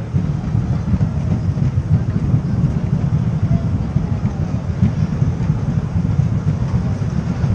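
Wooden roller coaster train's wheels rolling along the track, a steady low rumble heard from on board the front car.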